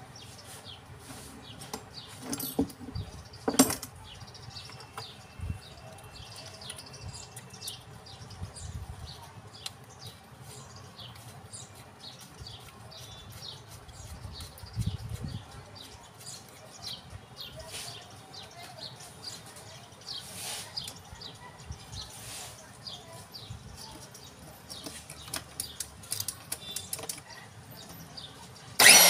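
Scattered light clicks and taps of hands handling the metal and plastic housing of a demolition hammer clamped in a vise, the loudest tap about three and a half seconds in. Right at the end a power tool starts up loudly.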